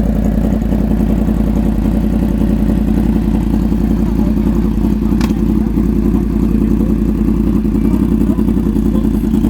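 Yamaha MT-10's crossplane inline-four running steadily through a loud aftermarket exhaust, a fast, even, low exhaust pulse with no change in revs.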